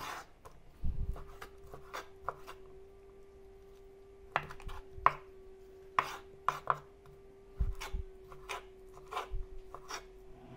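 Kitchen knife chopping raw peeled shrimp on a wooden cutting board: irregular knocks of the blade against the board, some in quick pairs, over a steady faint hum.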